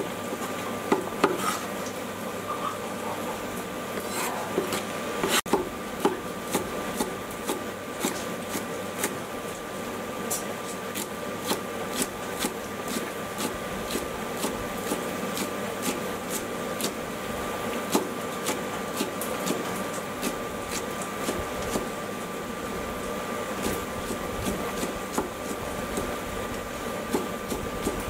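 Kitchen cleaver chopping green vegetable stalks on a thick wooden chopping block: a quick, even run of knocks on the board that carries on throughout.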